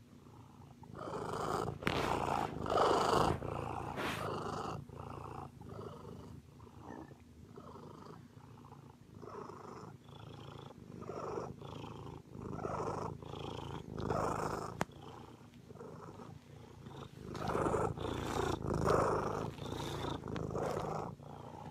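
Domestic cat purring close to the microphone, swelling and fading in a steady rhythm.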